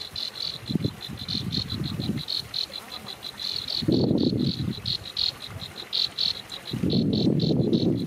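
Insect chirping in a steady high-pitched pulse, about six pulses a second, with two spells of low rumbling noise, about four seconds in and again near the end.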